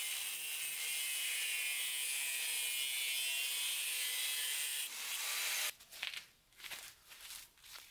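Power grinder's abrasive disc grinding the steel of an old hammer head: a steady, high hissing grind with a faint motor whine. It cuts off suddenly nearly six seconds in, and a few short rubbing and scraping noises follow as the hammer head is handled in gloved hands.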